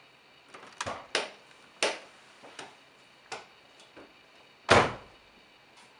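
A series of sharp clicks and knocks, with one heavier thump a little past the middle that is the loudest sound.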